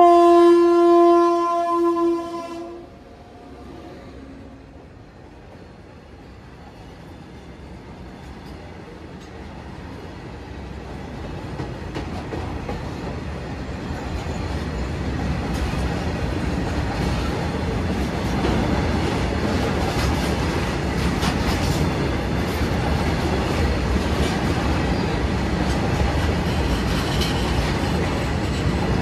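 A WAG9 electric locomotive sounds its horn in one blast of nearly three seconds. The train's rumble then grows louder as it reaches the level crossing, and it settles into the steady rumble and wheel clatter of a long rake of loaded BTPN tank wagons rolling past.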